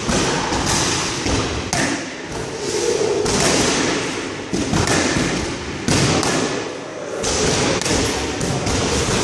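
Boxing gloves punching focus mitts: a series of sharp smacks, unevenly spaced, coming in short runs.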